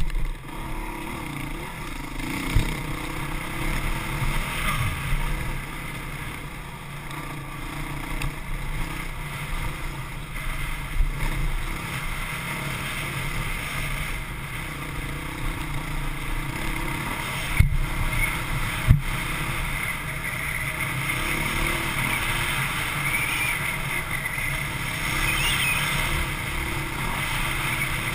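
Honda CRF450X dirt bike's single-cylinder four-stroke engine, heard from an onboard camera, revving up and down as the throttle is opened and closed over a rough dirt trail. Two sharp knocks come a little over a second apart, about two-thirds of the way through.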